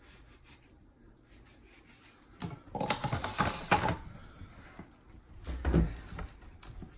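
Cloth rubbing over the plastic drum of a rotary case tumbler for about a second and a half, then a dull bump as the drum is handled on a countertop.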